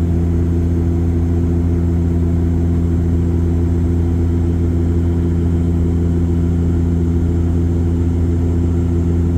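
Steady low drone of an airliner in flight, heard from inside the passenger cabin: engine and airflow noise that stays unchanged throughout.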